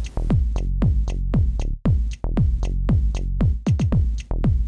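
Electronic background music with a steady drum-machine beat of deep kick-drum thumps that drop quickly in pitch, with light ticks above them.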